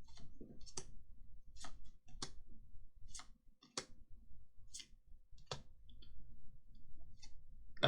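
Pokémon trading cards being flicked through one at a time: a string of short, sharp clicks, roughly one every half second to second.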